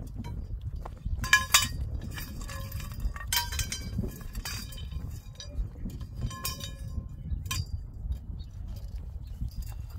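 Metal tent-frame pipes clinking and ringing as they are handled and knocked together, a few sharp metallic strikes, the loudest about a second and a half in and again about three and a half seconds in, with lighter clinks later, over a low steady rumble.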